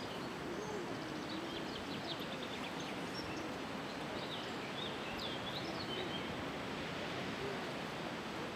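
Open-air ambience: a steady background hiss of wind and field noise, with small birds chirping and twittering from about a second in until past six seconds.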